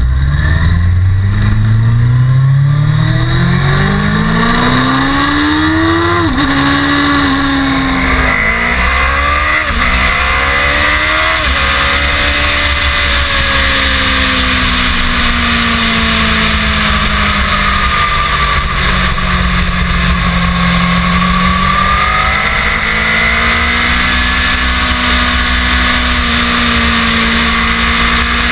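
Sportbike engine heard from on board, accelerating through the gears: its pitch climbs and drops sharply at three upshifts in the first dozen seconds, then it runs at a steadier speed with slow rises and falls. A steady rush of wind noise runs underneath.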